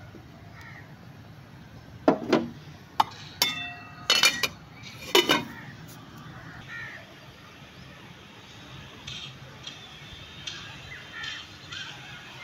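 A metal spoon and an aluminium lid clinking against a steel cooking pot as the pot is covered: about five sharp, ringing clanks over a few seconds.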